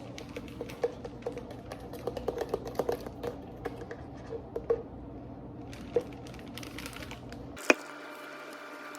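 Light, irregular clicks and taps of food and utensils being handled while a burger is assembled, over a steady low hum. About three-quarters of the way through, one sharp click comes just as the hum cuts out.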